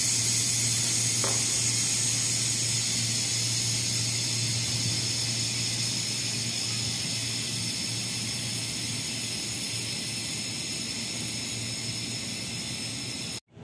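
Steady hiss with a low hum from a stationary commuter electric train's running equipment, slowly fading, then cutting off suddenly near the end.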